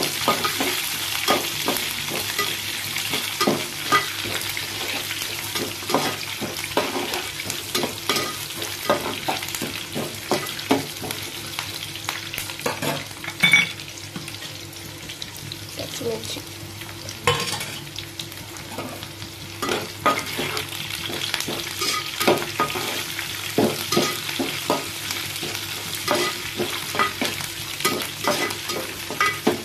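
Onions, peanuts and cashews sizzling in oil in a metal kadai, with steady frying hiss. A spatula stirring the mix clicks and scrapes against the pan over and over, with a couple of louder knocks.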